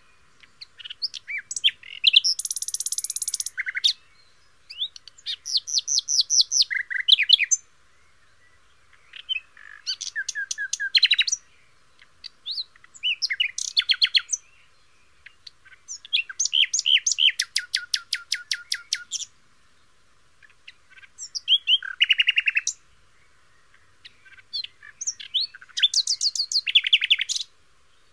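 A songbird singing in phrases of rapid repeated notes and trills, seven phrases of one to three seconds each, separated by short pauses.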